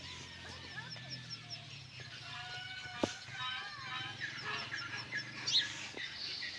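Birds calling: a run of high chirps repeating about four times a second, with assorted shorter, lower calls over a low steady hum. A sharp click comes about three seconds in, and a louder call about five and a half seconds in.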